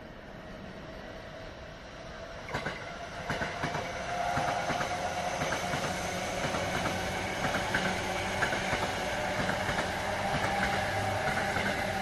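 JR East E233 series electric commuter train passing on the tracks below. Its running noise builds from about 2.5 s in, with wheels clicking over rail joints and a steady whine.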